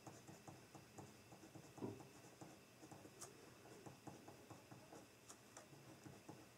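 Faint pen writing on notebook paper: light, irregular taps and scratches of the pen tip, with one slightly louder knock about two seconds in.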